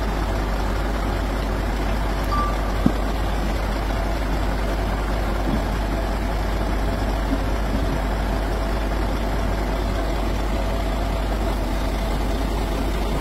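Heavy truck-crane engine running steadily as a steady low mechanical drone, with a short beep about two seconds in and a single sharp knock just after.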